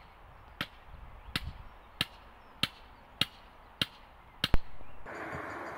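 Hammer blows driving a steel mooring pin into the towpath to moor a narrowboat: about eight sharp strikes at an even pace of roughly one every 0.6 s, the last a quick double and the loudest. A steady rushing noise takes over about five seconds in.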